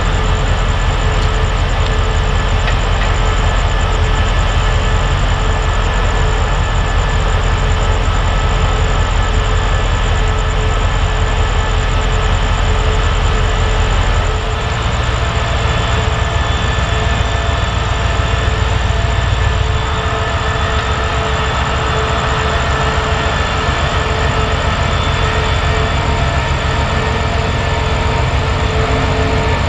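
CRRC CDA5B1 (QSY) diesel-electric locomotive running with a deep pulsing rumble and a steady high whine. About halfway through the engine note changes, and again a few seconds later, as it throttles up and the train starts pulling away.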